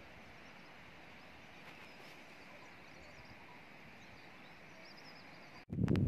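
Faint, steady outdoor hiss with a few faint, high bird chirps. Near the end it cuts suddenly to loud wind buffeting the microphone.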